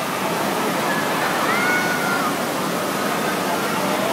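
Steady rushing of water in an indoor water park's lazy river. A faint, brief high-pitched call rises above it about a second and a half in.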